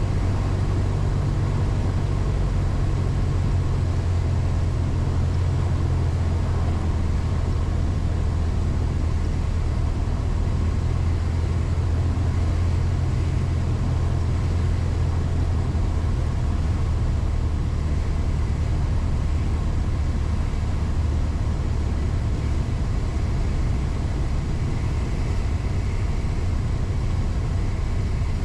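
Cessna 172's piston engine and propeller droning steadily at low power, with airflow noise, heard inside the cockpit during the landing.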